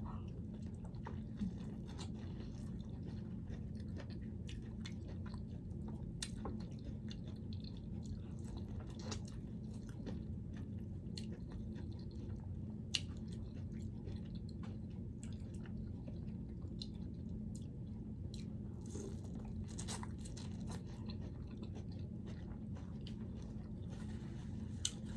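A person chewing and biting food close to the microphone, with scattered small clicks and mouth sounds over a steady low hum.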